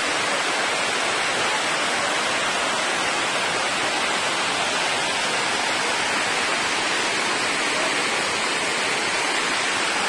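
Waterfall and its cascades pouring over rock ledges: a steady, even rush of falling water that does not let up.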